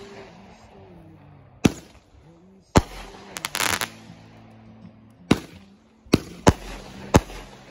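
Aerial fireworks bursting overhead: about six sharp bangs, three of them close together near the end. A brief dense crackling comes just after halfway, from a glittering crackle effect.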